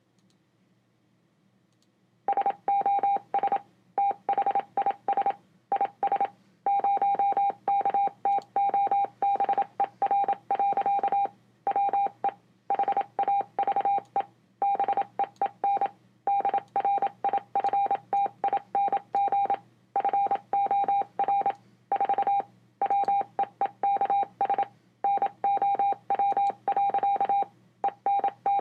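Morse code beeping from loudspeakers: a single steady mid-pitched tone keyed on and off in short dots and longer dashes. It starts about two seconds in, over a faint low hum.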